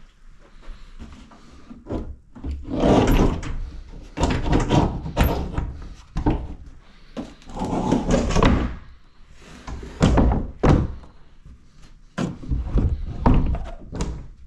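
A series of irregular loud knocks, thuds and scrapes, like objects being handled or banged against a door or wall. They begin about two seconds in.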